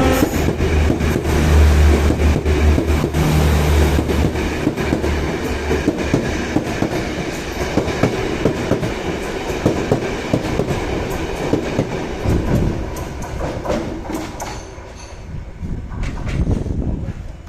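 Express train passing behind a Class M11 diesel-electric locomotive. There is a deep engine throb for the first few seconds, then the carriage wheels clatter over the rail joints with many quick clicks, fading away near the end.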